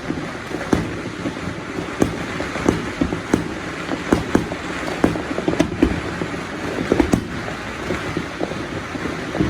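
Fireworks going off in many sharp, irregular pops and bangs, several a second, over a continuous wash of noise.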